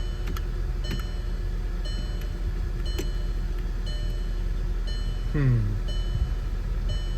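Car warning chime beeping about once a second, one short tone each time, over a steady low hum, with a few light clicks. A brief falling vocal sound comes about five seconds in.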